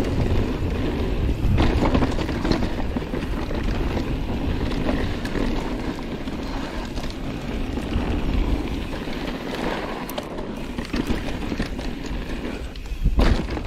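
Mountain bike rolling down a dirt trail, the tires on the dirt and the bike rattling over bumps, with wind buffeting the microphone. A louder knock near the end.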